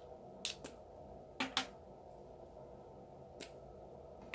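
A few light clicks and taps of makeup items being handled as a lip product is picked up and opened: two pairs in the first two seconds and one more later.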